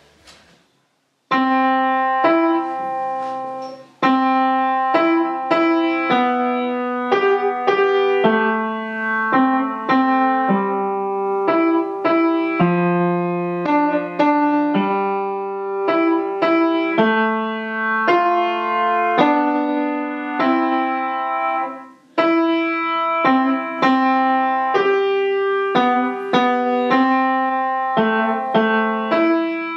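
Kawai K300 upright acoustic piano playing a simple beginner's tune, single notes struck one after another in a steady, moderate rhythm. It starts about a second in and breaks off briefly twice.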